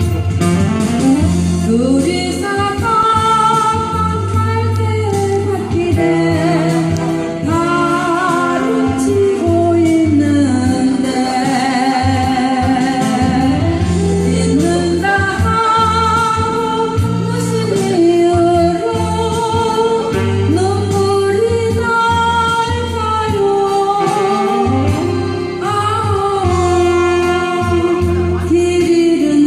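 A solo voice sings a Korean popular song over an instrumental backing track, with long held notes and vibrato.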